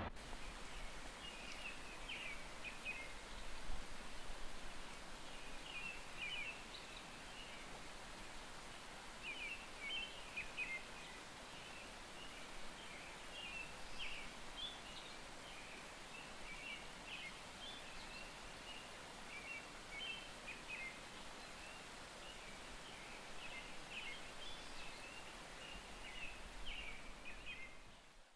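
Small birds chirping in short, scattered bursts over faint, steady outdoor background noise, with the sound cutting off abruptly at the end.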